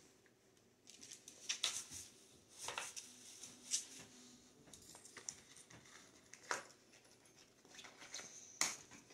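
Light, irregular crinkling, rustling and small clicks of a paper price tag and its fastener being picked and tugged off a plush dog toy by hand.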